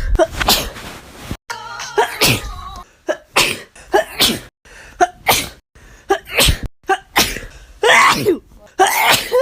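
A woman sneezing over and over in a sneezing fit: about a dozen sneezes and sharp in-breaths in quick succession, some with a voiced "achoo" sweep. Editing cuts the sound into short pieces with sudden breaks.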